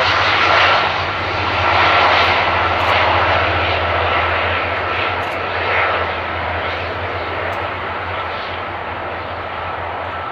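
The jet engines of a Boeing 747-400 freighter running loud during its landing rollout, a steady whine over a rushing noise that slowly grows quieter.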